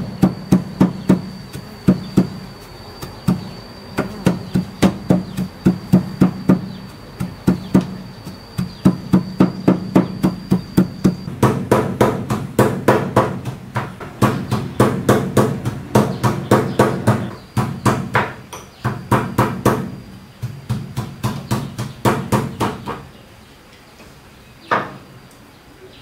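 Wooden pestle pounding chopped greens in a small ceramic bowl: steady rhythmic knocks, about three a second, which stop a few seconds before the end.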